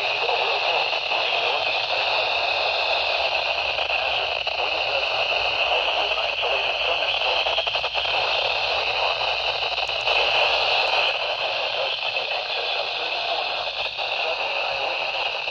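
Weather radio receiver giving a steady static hiss, with no clear voice or alert tone coming through.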